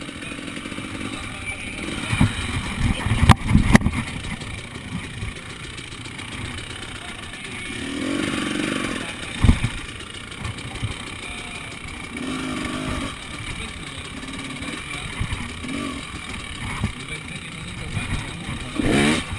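KTM enduro motorcycle engine revving in short bursts and easing off, with a few sharp knocks as the bike strikes the logs it is riding over.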